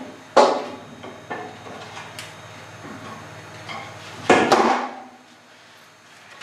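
Wooden knocks and clatter of 2x4 timbers being handled and fitted against the ceiling framing: a sharp knock about half a second in, a few lighter taps, and a louder cluster of knocks just after four seconds.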